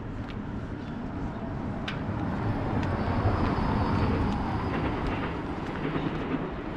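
A passing vehicle, its noise swelling to a peak about halfway through and then fading, with faint footsteps over it.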